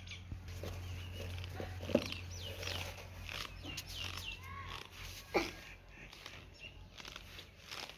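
Birds chirping in short, falling calls over a low steady hum, with cloth rustling as a kurta is pulled off over the head. Two sharper, louder sounds come about two and five seconds in.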